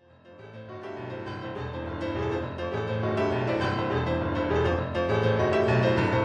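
Upbeat 1950s rock-and-roll piano music, fading in over the first second or so and then playing at a steady level with a rhythmic repeating bass line.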